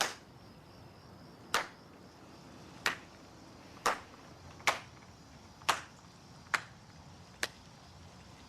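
A series of eight short, sharp clicks or snaps, spaced about a second apart at an uneven pace.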